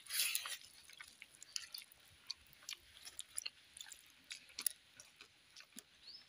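Close-up chewing of a mouthful of rice, saag and dal eaten by hand: a string of small wet mouth clicks, with a louder burst in the first half-second.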